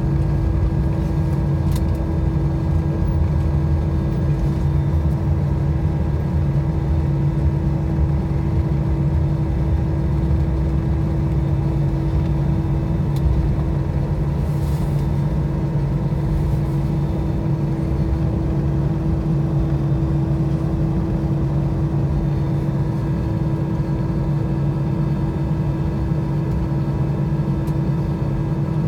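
Airbus A320 cabin noise while taxiing after landing: a steady drone of the idling engines and cabin air, with an even low hum.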